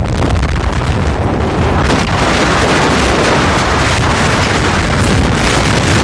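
Strong wind blasting across the microphone: a loud, steady rush with deep buffeting.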